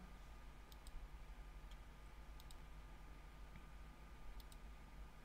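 Near silence with a few faint computer-mouse clicks, several in quick pairs, over a faint steady hum.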